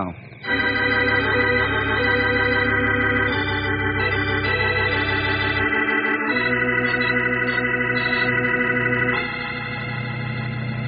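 Organ music bridge: a run of held chords that starts about half a second in and moves to a new chord every few seconds, settling into a softer chord near the end. It marks a scene change in a radio drama.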